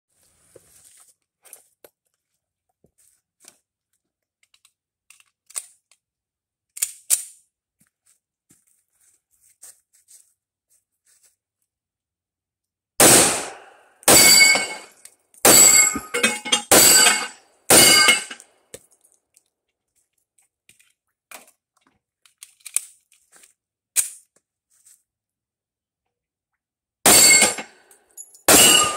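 Rock Island Armory 1911 pistol firing at steel plate targets: a string of about six shots roughly a second apart, then two more near the end, with steel ringing under the shots. Faint clicks and knocks of handling come before the first shot.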